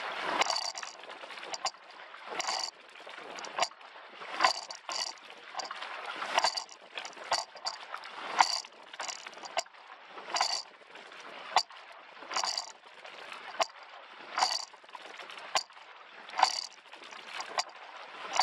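Coxless four rowing shell under way. A sharp knock of oars in their oarlocks comes at each stroke, about one every two seconds, with smaller clicks between strokes and water rushing along the hull.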